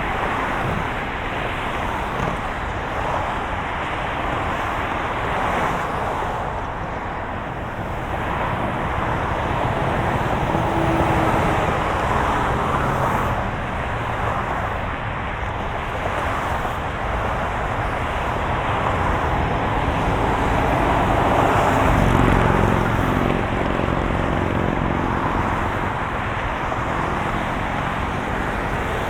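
Road traffic: a steady wash of cars passing, swelling as vehicles go by, with a heavier engine rumbling past a little past the middle.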